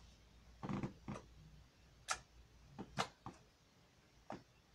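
Slime and its plastic container being handled: a soft knock, then a handful of sharp, irregular clicks and pops.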